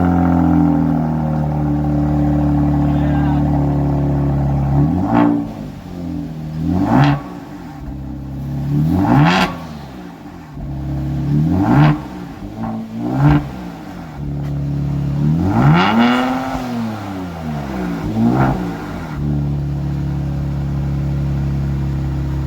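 2018 Kia Stinger's engine running through a newly fitted Borla S-Type exhaust with X-pipe, lukewarm. A high idle just after start-up drops about five seconds in. Then come about seven quick throttle blips, one held a little longer in the middle, before it settles to a steady idle.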